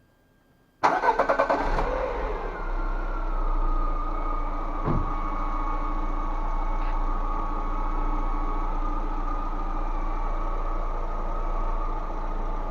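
Lada Vesta engine cranked by the starter and catching about a second in, then settling to a steady idle with a steady high tone over it. This is the test start after the cracked vacuum hoses were replaced, listening for the under-hood whistle; a faint sound is still there, which the mechanic suspects may be an unsealed intake plenum or the check valve ringing.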